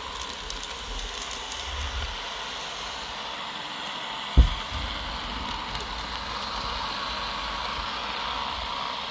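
Deebot N79 robot vacuum running with a steady hum while it sweeps up scattered rice, with a few faint clicks in the first two seconds. A single loud thump about four and a half seconds in.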